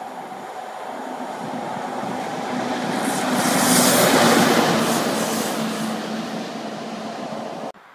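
A DB Schenker electric locomotive passing through the station on its own, with a steady hum and a rushing rail noise. The sound grows as it approaches, is loudest about four seconds in as it goes by, then fades, and it cuts off suddenly near the end.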